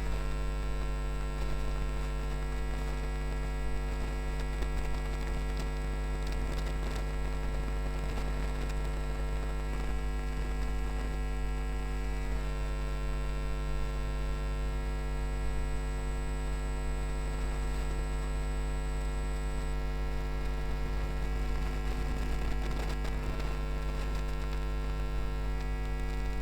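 A steady electrical hum: a strong low drone with a stack of fainter higher tones above it.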